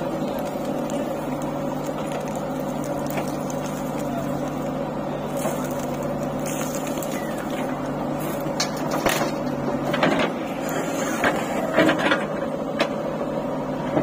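JCB 3DX backhoe loader's diesel engine running steadily under load as the backhoe digs and swings. In the second half a run of knocks and clatter comes in as the bucketful of soil and stones is dumped into the tractor trolley.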